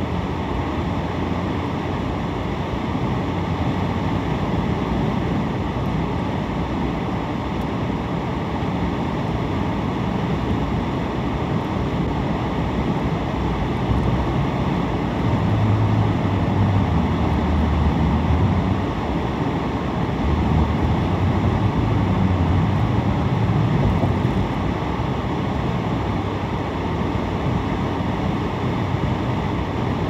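Road noise heard inside a moving car at highway speed: steady tyre roar and engine hum, with a deeper low rumble swelling for several seconds in the middle.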